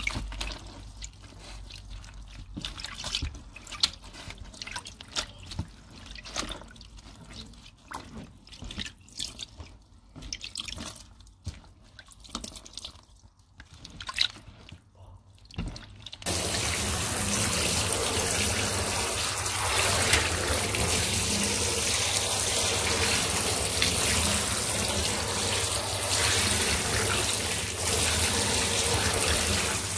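Wet squelching and dripping as tied fabric is squeezed and kneaded in a tub of elderberry dye. About halfway through it cuts to a tap running steadily, water pouring onto the dyed fabric in a bathtub to rinse it.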